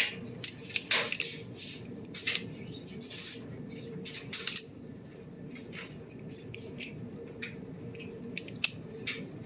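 Butterfly knife (balisong) being flipped open and closed, its handles clicking and clacking against each other and the blade in irregular clusters of sharp clicks.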